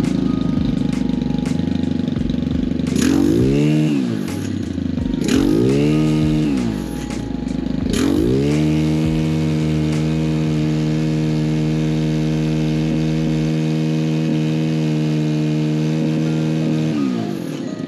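Stihl FS91 string trimmer's 4-MIX engine idling, revved up and back down twice, then held at high revs for about eight seconds before dropping back to idle near the end. It runs smoothly, its carburetor freshly cleaned and adjusted.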